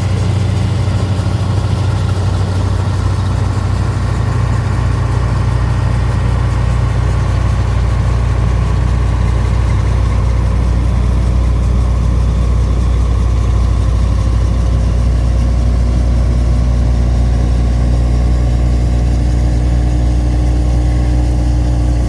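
Large diesel engine of farm harvesting machinery running steadily at constant speed, a deep even hum with no revving.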